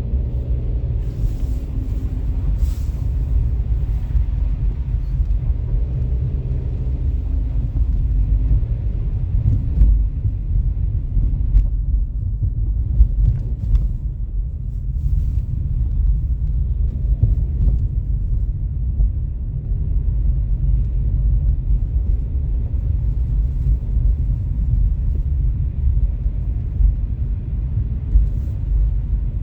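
Steady low rumble of storm wind buffeting the microphone, mixed with street traffic. A vehicle engine hums through the first several seconds, and there are a few faint clicks.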